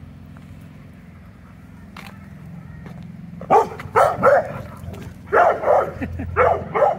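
Dog barking in play: about seven sharp barks in three quick groups, starting a little over three seconds in.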